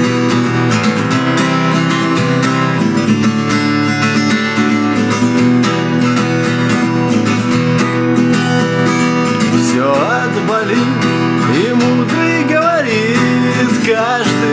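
Acoustic guitar strumming the intro of a song. A singing voice comes in over the guitar about ten seconds in.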